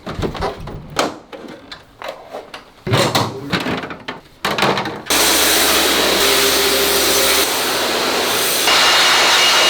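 Scattered knocks and clicks of air-conditioner parts being handled. About five seconds in, a steady loud hiss of high-pressure cleaning equipment starts and keeps going.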